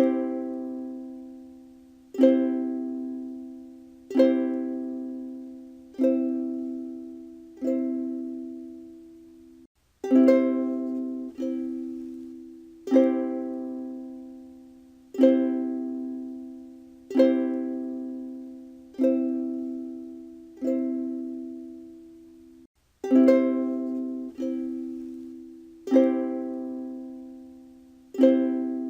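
Ukulele strumming a C (Do) chord about every two seconds, each strum ringing out and fading before the next. The chord stops briefly twice.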